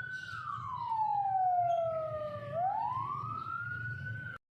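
A siren wailing: one tone rises, falls slowly and rises again, then cuts off suddenly near the end.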